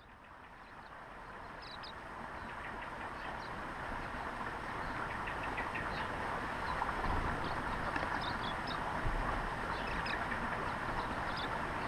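Waxeyes (silvereyes) giving short, high, scattered chirps over a steady background hiss that swells up during the first few seconds.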